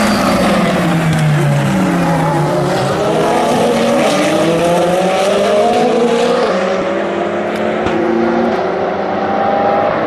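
Le Mans race cars, a prototype and a GT car, passing close by. Their engine notes fall as they brake and downshift over the first three seconds, then rise as they accelerate away through the gears, with other cars' engines overlapping.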